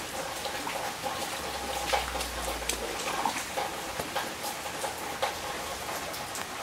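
Steady rain falling on a flooded concrete patio and lawn, with many sharp single drops splashing into a shallow puddle over a clogged drain.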